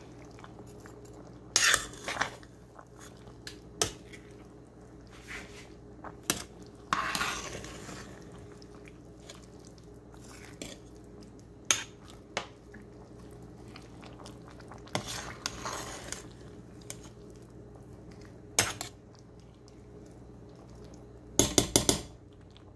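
Metal spoon scraping and knocking against a metal pot while stirring a liquid stew, in scattered strokes with pauses between them. There is one longer scrape about seven seconds in and a quick cluster of knocks near the end.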